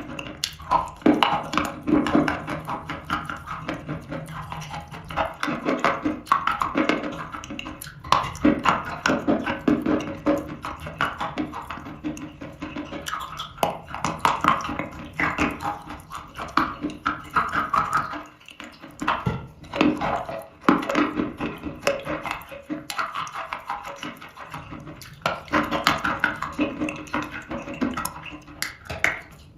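Close-up chewing of dry eating chalk: a dense, uneven run of crunches and mouth noises, with a brief lull about two-thirds of the way through.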